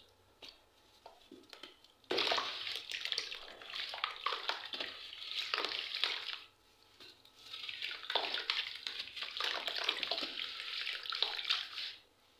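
Blocks of charcoal being crushed and crumbled by hand into water, giving two long stretches of dense crackling, fizzing and splashing, with a few small clicks before the first.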